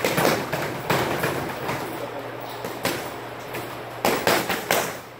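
Boxing gloves striking focus mitts: several sharp slaps at irregular intervals, with three in quick succession near the end.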